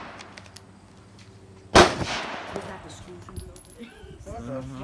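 A single gunshot about two seconds in: a sharp crack that rings off over about half a second. A voice speaks briefly near the end.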